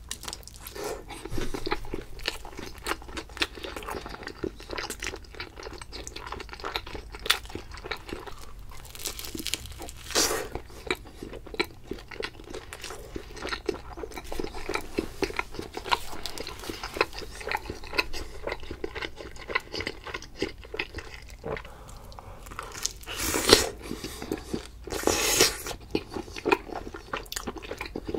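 Close-miked eating sounds: biting into pizza and chewing it, with many small crunchy crackles from the crust. Two louder, longer crunching stretches come near the end.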